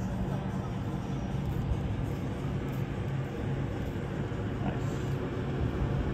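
Cruise ship deck ambience: a steady low machinery hum from the ship, with uneven wind rumble on the microphone.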